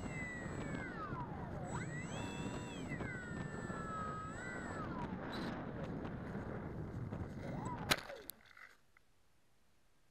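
Onboard sound of a Bixler RC foam plane's electric pusher motor whining over rushing air, its pitch rising and falling with the throttle. About eight seconds in there is a sharp knock as the plane touches down in the grass, and the motor and air noise stop.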